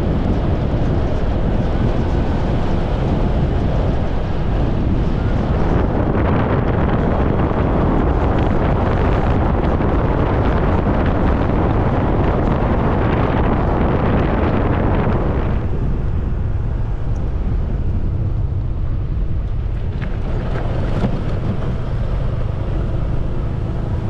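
Wind rushing over the microphone of a camera riding on a Honda PCX scooter, with the scooter's engine and road noise underneath. The rush eases about two-thirds of the way through.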